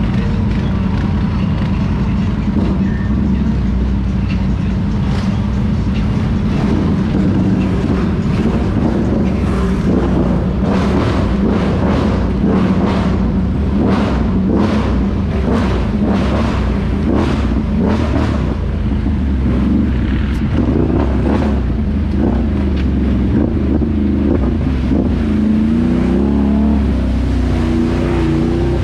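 ATV engine running steadily under way, with a run of sharp knocks at a bit under two per second through the middle and the engine revving up near the end.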